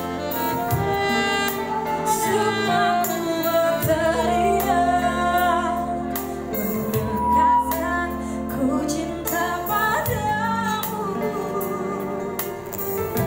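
Live band playing a slow ballad, a woman singing the lead melody over guitar, sustained low accompaniment and a light steady beat.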